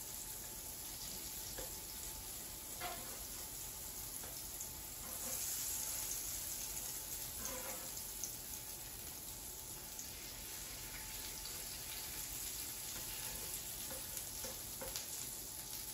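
Butter melting and sizzling on a hot electric griddle: a steady, faint hiss that gets louder for a few seconds about five seconds in, with a few soft scrapes of a spatula spreading the butter.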